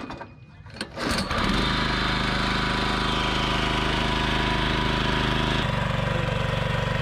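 Small petrol engine of an engine-driven water pump, pull-started: it catches about a second in and then runs steadily.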